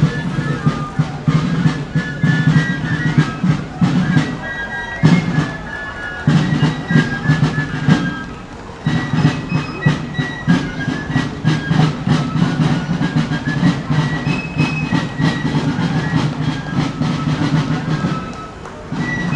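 Fife and drum march: shrill fifes play a melody over rapid snare drum rolls and strikes, with short pauses between phrases.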